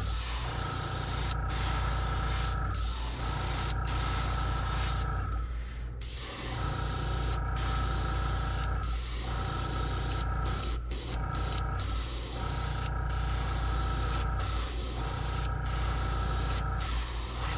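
Gravity-feed airbrush spraying paint in repeated bursts of one to three seconds, an airy hiss with a faint steady whistle, broken by short pauses, the longest about five to six seconds in. A steady low hum runs underneath throughout.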